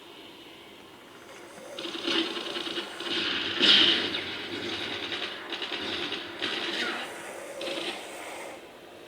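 Snoring during sleep: a string of noisy, rattly breaths of about a second each, the loudest about three and a half seconds in.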